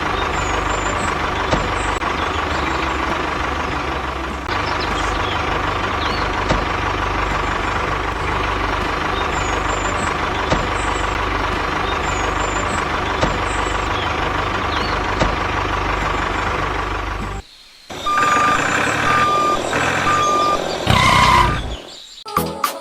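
Truck engine running steadily with a low rumble. It cuts off sharply near the end, followed by three short, evenly spaced reversing beeps.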